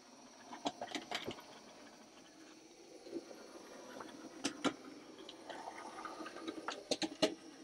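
Small OO gauge model steam tank locomotive running along the track: a faint motor hum with scattered clicks from the wheels crossing rail joints and points, in small clusters about a second in, around four and a half seconds and about seven seconds in.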